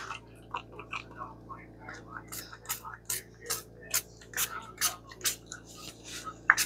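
Small spray bottle of page stain spritzing onto paper in a run of short bursts, about two to three a second.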